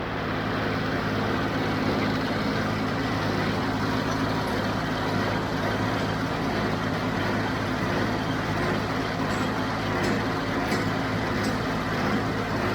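John Deere 5055D tractor's three-cylinder diesel running steadily at a constant speed, with a few faint clicks in the last few seconds.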